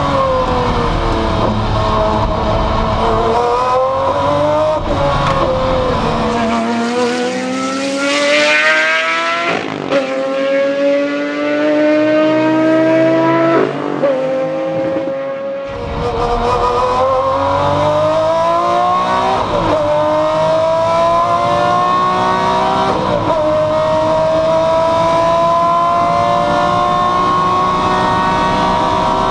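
Maserati MC12 Corsa's V12 engine at racing speed. Its pitch falls at first, then climbs repeatedly through a series of upshifts, each marked by a brief break. The middle part is heard from beside the track as the car accelerates past, the rest from inside the cockpit.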